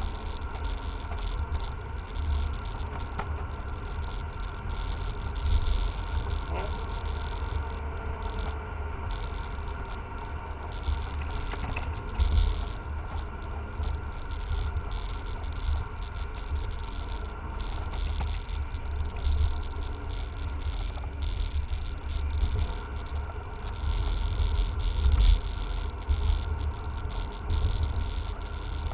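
Steady low rumble of engine, tyre and road noise heard inside the cabin of a manual-gearbox BMW sedan cruising along a road.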